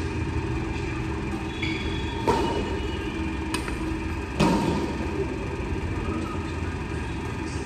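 Badminton rackets striking a shuttlecock in a doubles rally: a sharp hit about two seconds in and a louder one about four and a half seconds in, with a smaller click between, over a steady low hum.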